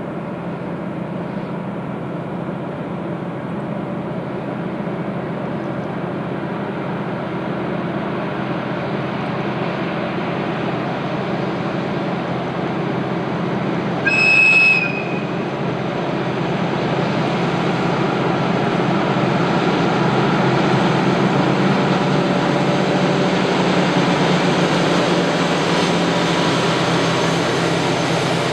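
Diesel train running on the line, its engine and running noise growing louder as it comes closer. About halfway through it gives one short horn blast.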